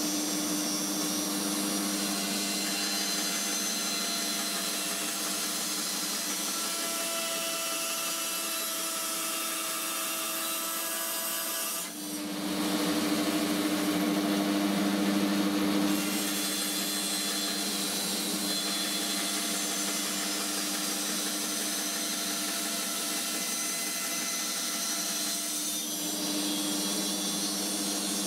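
12-inch band saw (Lumberjack BS305) running and cutting plywood as the board is turned on a circle-cutting jig, a steady motor hum under the sawing. The sound dips briefly about twelve seconds in, then runs louder for a few seconds.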